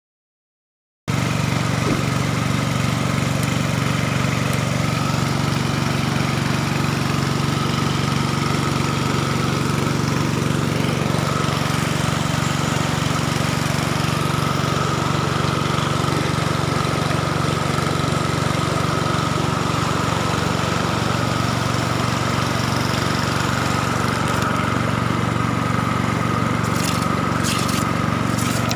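Small engine of a gold-dredging suction pump running steadily, starting about a second in, over the rush of river water.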